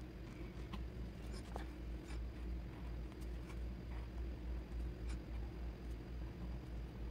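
Pen writing on lined paper: faint scratching of the nib with scattered small ticks as letters are formed, over a constant low hum.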